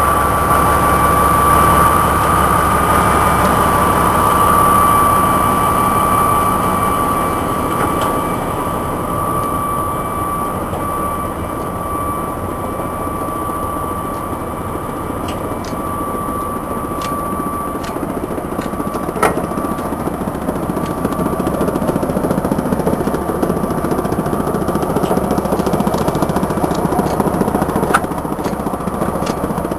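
Morbark 1200 tub grinder running, a steady heavy mechanical din from its engine and grinding mill. A steady whine stands out at first and then weakens, and a few sharp knocks come through in the second half.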